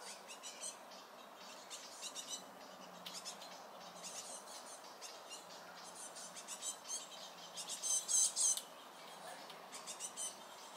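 Eurasian red squirrel giving rapid, high-pitched squeaks in repeated short bouts, loudest about eight seconds in: the alarm call it makes when another squirrel comes near.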